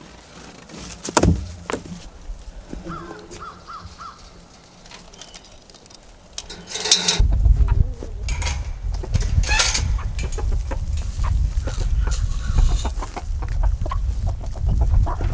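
Chickens clucking as a flock crowds round to be fed. There is a sharp knock about a second in, and from about halfway a steady low rumble sets in under the clucking.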